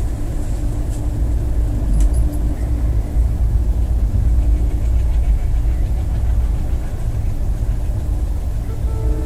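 Steady low rumble of a Humsafar Express passenger coach running along the track, heard from inside the coach behind a closed window.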